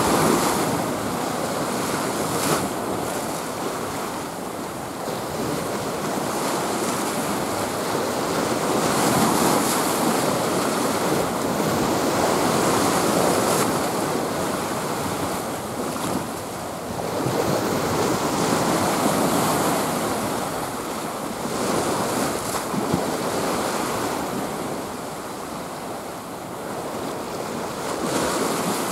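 Sea surf breaking and washing in, swelling and easing every few seconds, with wind on the microphone.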